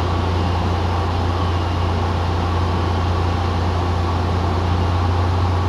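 Cockpit drone of a 1948 Cessna 170's six-cylinder Continental C-145 engine and propeller in steady cruise, heard inside the cabin: an even, unchanging low hum.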